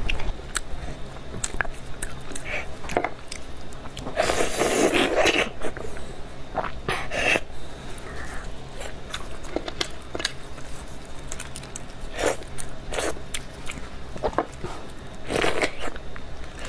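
Close-miked wet slurping and sucking as braised beef marrow is drawn out of the bone, with scattered mouth clicks and smacks; two longer, louder slurps come about four seconds in and near the end. The marrow is stewed soft enough to be sucked straight out without scooping.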